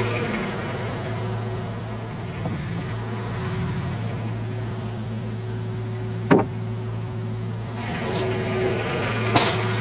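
Farm tractor engine running at a steady speed with a low drone, powering the sawmill. Two sharp knocks stand out, the louder one about six seconds in and another about nine seconds in.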